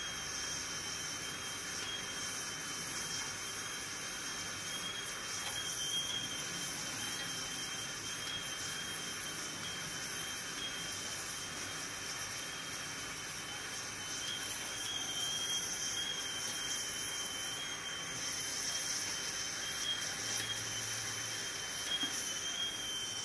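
Gas (butane) soldering iron hissing steadily with a thin, high whistle as it heats a wire onto a car speaker's terminal tab.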